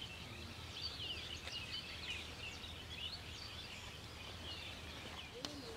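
Many small birds chirping and twittering in quick short calls, over a steady low hum, with a single click near the end.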